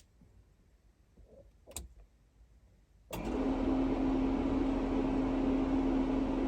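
Near quiet with a faint click, then about three seconds in a trailer furnace blower starts suddenly and runs steadily, a constant hum over rushing air.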